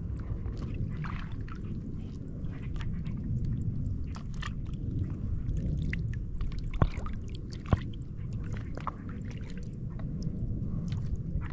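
Low, steady rumble of wind on the microphone with light water sloshing around the wading angler, and scattered small clicks; two sharper clicks come about seven and eight seconds in.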